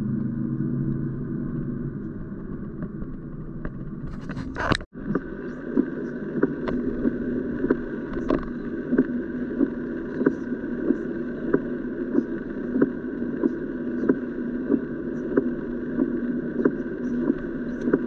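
Car driving heard from inside the cabin: steady engine and road noise. About five seconds in it cuts abruptly to driving on a wet road in the rain, with short regular clicks about three every two seconds over the steady road noise.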